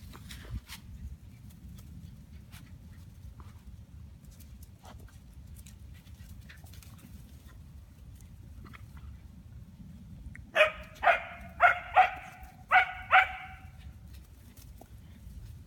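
A dog barks six times in quick succession about ten seconds in, over a low steady rumble; before that only faint scattered clicks.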